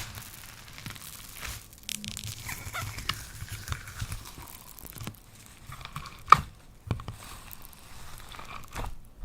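Slime being squished and stretched by hand: irregular crackling and squelching, with one sharp pop about six seconds in.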